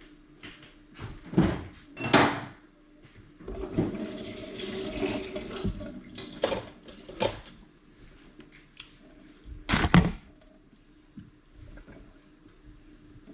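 Kitchen clatter: several knocks of dishes and utensils set down and handled, the loudest near the end, with a rush of running water for about two seconds in the middle.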